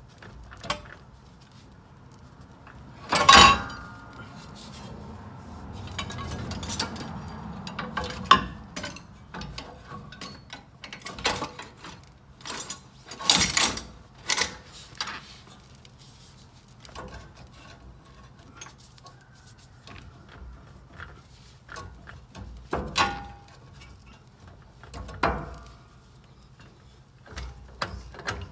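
Irregular metal clinks, knocks and clanks of hand tools and parts being handled during work at a car's tie rod end and front suspension. A few are louder, the loudest about three seconds in and again around thirteen seconds, and a short ringing clink comes near twenty-three seconds.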